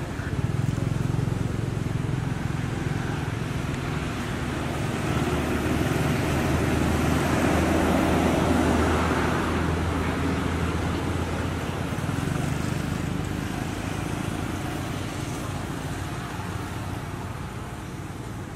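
A motor vehicle's engine and road noise, growing louder to a peak around the middle and then slowly fading, as of a vehicle passing on a road.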